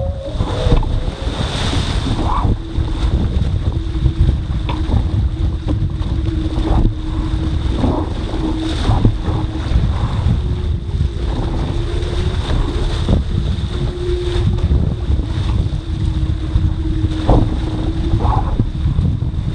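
Wind buffeting the microphone on a foiling dinghy under sail, with water rushing and splashing against the hull. A steady hum runs through most of it.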